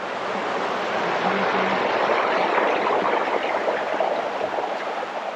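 Creek water running over rocks: a steady, loud rush of flowing water.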